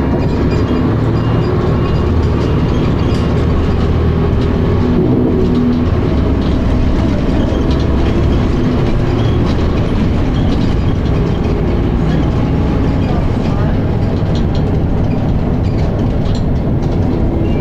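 Dennis Arrow double-decker bus's diesel engine and gearbox running steadily while the bus is driven, heard from inside the saloon as a loud, even drone with occasional body rattles.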